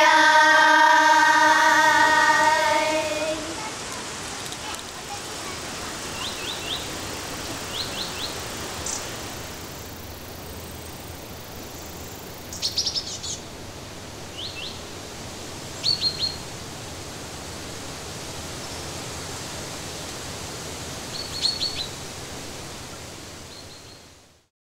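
Children's singing ends on a long held note that fades out. It gives way to the steady hiss of a shallow stream, with small birds chirping in quick groups of two or three several times. Everything fades out near the end.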